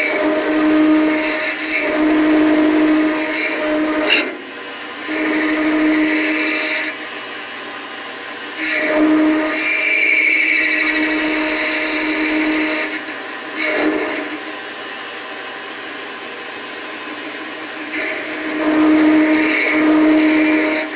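Metal lathe running with a steady hum, getting louder for several seconds at a time as the cutting tool takes passes on the metal bar for a vise handle; an awful lot of noise.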